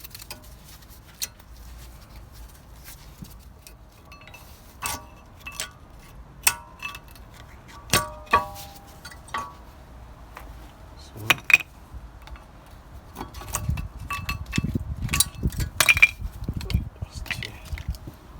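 Old front brake pads being worked out of a Vauxhall Astra J's caliper carrier: irregular metallic clicks and clinks, some ringing briefly. From about two-thirds of the way in there is more scraping and rubbing.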